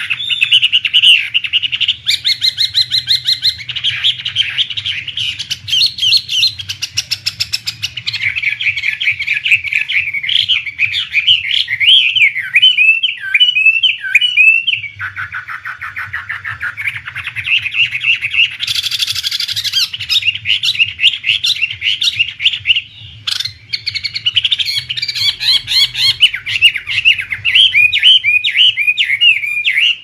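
A Chinese hwamei (wambi) sings loudly and without a break, a long run of varied whistled phrases mixed with rapid trills. This is the kind of song used as a 'masteran' to teach caged songbirds.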